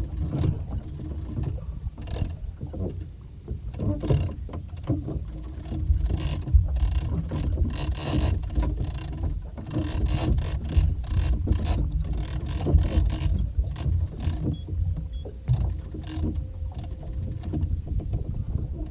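Fishing reel being cranked hard in bursts during a fight with a big fish, its gears and clicker ticking rapidly, over a steady low rumble.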